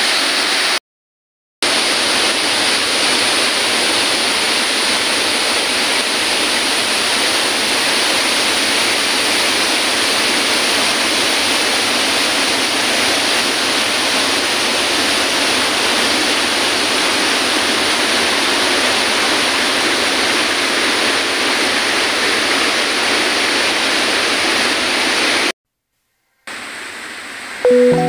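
Steady rushing of a waterfall and fast stream of water, cutting out twice for a moment.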